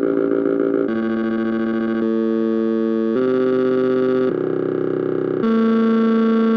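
Sound of a one-dimensional array of blinking red, green and blue LEDs, played through a speaker: a steady electronic tone of several pitches at once that switches abruptly to a new one about every second. A never-ending series of annoying sounds.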